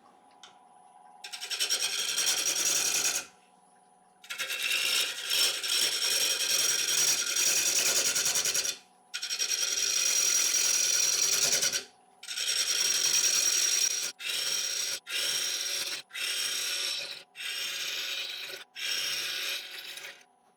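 Gouge cutting the spinning edge of a dry ash bowl blank on a wood lathe: a run of cuts with a rapid ticking from the uneven, cracked blank, each cut a few seconds long at first and then shorter and quicker after about 14 seconds. The lathe's motor hums steadily underneath.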